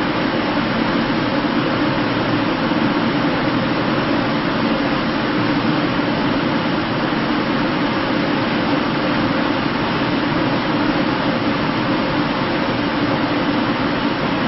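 Large ventilation system blowing steadily: an even rush of moving air with a low hum in it, unchanging throughout.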